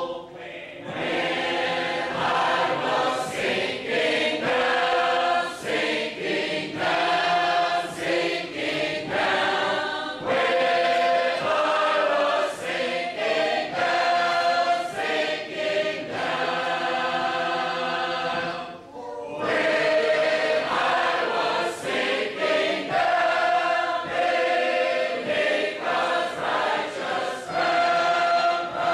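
A group of shape-note singers singing unaccompanied in full harmony, with brief breaks near the start and about two-thirds of the way through.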